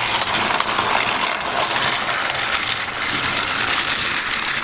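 Battery-powered TrackMaster Shooting Star Gordon toy train running along plastic track: a steady whir of its small motor and gears with a fine, fast rattle.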